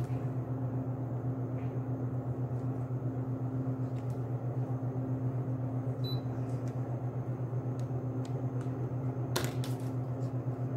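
Steady low hum of a machine in a small room, with a few faint clicks, the clearest about nine and a half seconds in.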